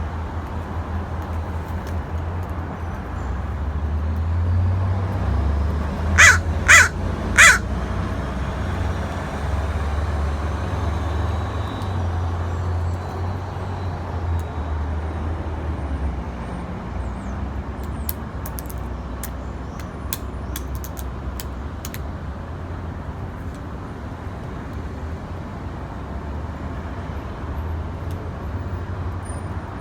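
A crow caws three times in quick succession, over a steady low rumble. A scatter of sharp clicks comes later.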